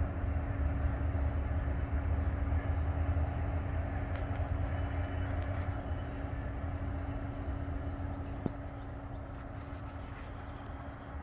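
Cars of a Norfolk Southern freight trash train rolling along the rails in a steady low rumble with a constant hum, slowly fading as the train draws away. A single sharp click comes about eight and a half seconds in.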